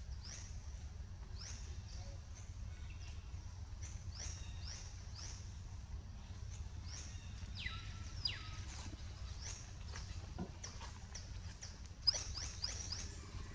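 Short, high-pitched animal squeaks, each falling in pitch, repeating irregularly about twice a second, with a quicker run of them near the end, over a steady low rumble.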